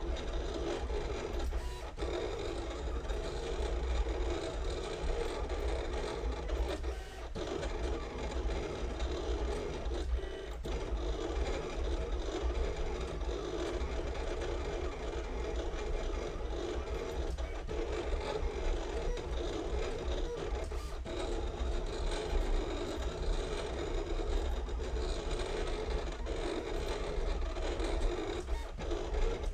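Silhouette Cameo 4 vinyl cutter running continuously as it cuts vinyl on a mat: its carriage and roller motors whirr steadily, with a few brief dips as the motion changes.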